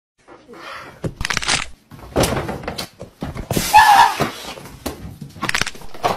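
A loud, irregular run of knocks, bangs and scuffs, with a short wavering pitched sound just under four seconds in, the loudest moment.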